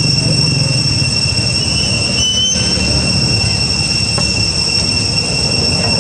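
A steady high-pitched whine at two pitches, stepping briefly higher about two seconds in, over a steady low rumble.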